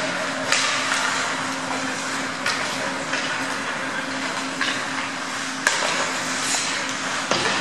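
Ice hockey play: skates scraping the ice and short stick-and-puck clicks over a steady low hum, with one sharp knock about two-thirds of the way through.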